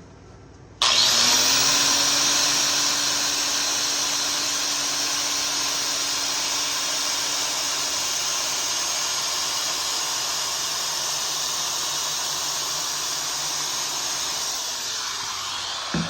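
Handheld power tool spinning a fine Scotch-Brite wheel, switched on about a second in and running steadily with a constant hum and a scuffing hiss as it smooths the rivets of a steel saw chain.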